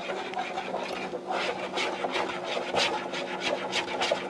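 A utensil stirring and scraping melted peanut butter and frosting around a bowl, in quick repeated strokes of about four a second that start about a second in.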